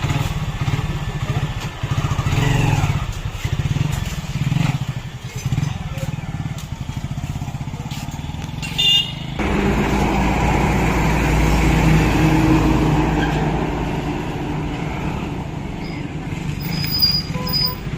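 Hero Glamour's single-cylinder four-stroke motorcycle engine running steadily just after a rebuild, left running so the new piston frees up; it sounds smooth. About nine seconds in the sound changes abruptly to a louder, fuller engine noise.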